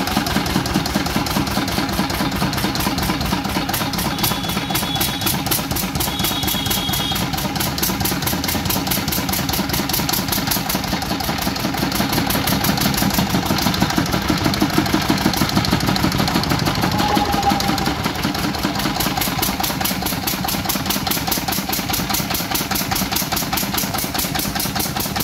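Field Marshal Lister-type single-cylinder diesel engine running steadily with an even, regular beat, being tried under load.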